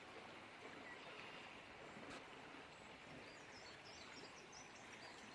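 Near silence: faint outdoor background noise, with faint high bird chirps about three and a half to five seconds in.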